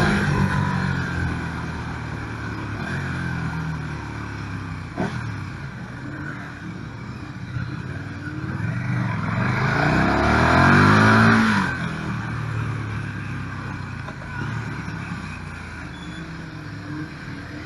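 KTM 1290 Super Duke R's V-twin engine heard from onboard. It comes off the throttle at first, then about halfway through revs up hard under acceleration with a rising note that cuts off sharply as the throttle closes, then runs on at lower revs. There is a short click about a third of the way in.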